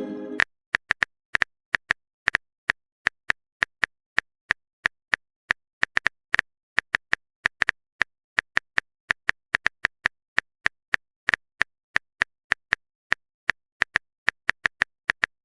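Phone keyboard typing clicks, a sound effect for a message being typed out, coming quickly and unevenly at about three or four a second.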